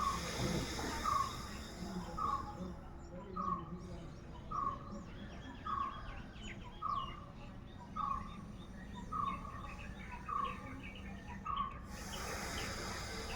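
A bird repeating one short, even note about once a second, eleven times, stopping near the end, with fainter high chirps from other small birds in between. A long breath drawn and let out through the nose is heard at the start and again near the end, during alternate-nostril pranayama.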